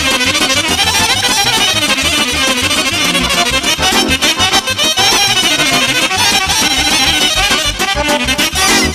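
Romanian folk dance music: an accordion plays a fast, busy melody over a steady pulsing bass beat, with brass joining in.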